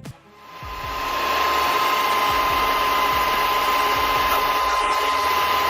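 Machinery running steadily, a dense mechanical noise with a high steady whine through it, fading in over the first second.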